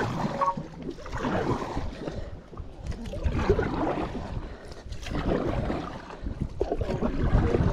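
Water splashing and gurgling around a stand-up paddleboard as it is paddled along a river, the sound swelling and fading irregularly, with a low wind rumble on the microphone.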